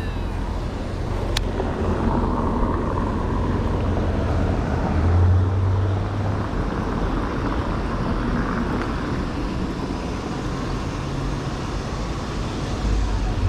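Steady rumble of motor traffic, swelling and easing as vehicles pass, loudest about five seconds in.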